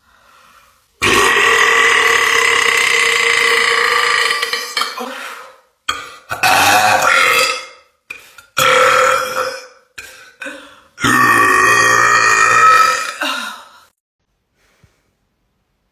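A woman burping loudly several times: one long burp of about four seconds, two shorter ones, then another long one of about three seconds near the end.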